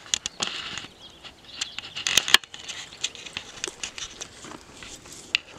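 Leafy branches and twigs rustling and crackling as people push through dense undergrowth, with a couple of sharp snaps about two seconds in.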